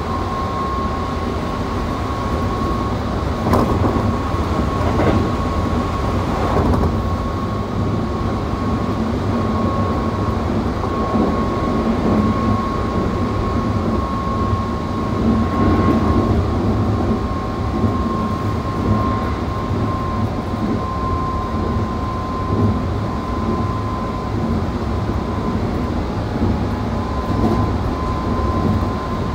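Keikyu 600 series electric train (Mitsubishi GTO-VVVF) running at speed, heard from inside the car: a steady wheel-and-track rumble with a constant high whine, and a few knocks over rail joints early on.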